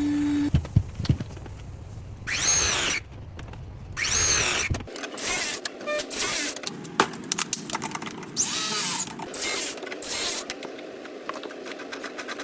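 Cordless power tool run in about six short trigger pulls, each under a second, the motor whine rising and falling with each pull.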